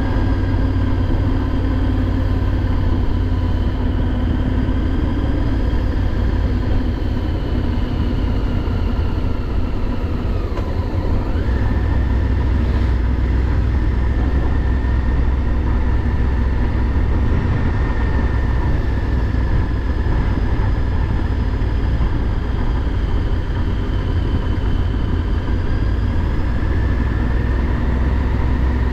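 Motorcycle engine and wind noise heard from the rider's seat while cruising steadily along a lane; the engine note rises a little about eleven seconds in.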